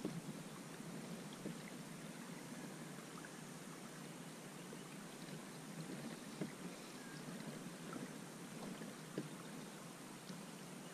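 Water lapping and trickling against a fishing kayak's hull as it moves slowly across calm water, with a few light knocks on the boat.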